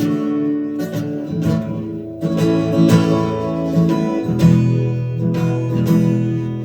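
Acoustic guitar strumming chords in an instrumental passage of a song played live, with a low held note coming in about four seconds in.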